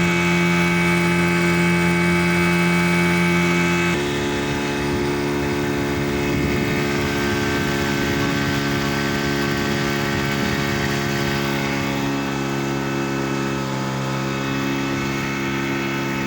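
Boat engine running steadily, its pitch dropping a step about four seconds in.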